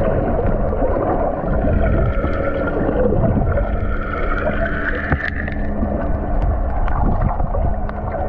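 Water sloshing and gurgling around a GoPro while snorkeling, under slow, soft background music.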